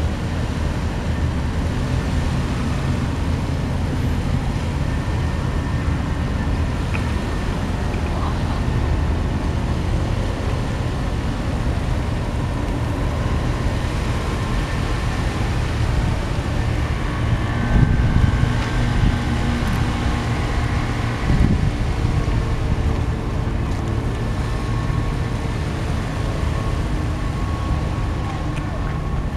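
Steady low outdoor rumble of wind on the microphone and distant engines, with a faint hum. Two brief louder swells come about two-thirds of the way through.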